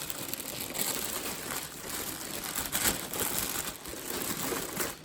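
Plastic packaging bag rustling and crinkling in continuous, irregular handling noise as the robot vacuum is moved around inside its box.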